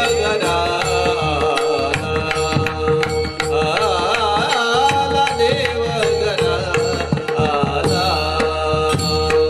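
Varkari bhajan music: a steady held drone note under a melody that slides and bends in pitch, with frequent drum and small-cymbal strokes keeping the beat.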